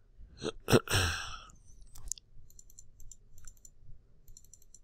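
A person breathes out sharply in the first second. In the second half come several short runs of quick, light clicks from a computer mouse.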